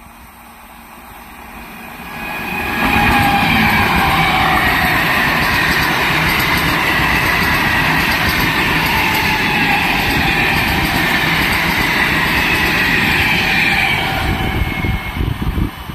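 MEMU passenger train passing at speed on the adjacent track. The rumble of wheels on rail builds over about three seconds, then holds loud for about ten seconds as the coaches run by, with a high whine over it. It falls away near the end.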